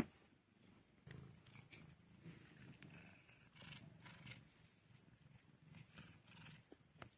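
A cat making a low, faint, continuous rumble while eating, mixed with soft crunching of freeze-dried fish. A sharp click at the very start is the loudest sound.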